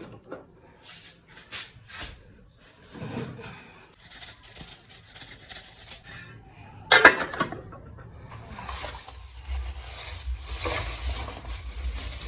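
Kitchen sounds of preparing a meal: scattered light knocks and clicks, a louder clatter about seven seconds in, then a steady hiss from about eight seconds on.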